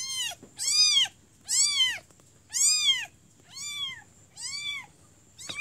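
Young kitten mewing repeatedly: about seven high-pitched cries, each one rising and falling in pitch, roughly one a second.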